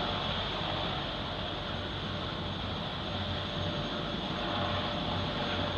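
Helicopter running steadily: continuous engine and rotor noise with a low rumble and a faint steady tone over it.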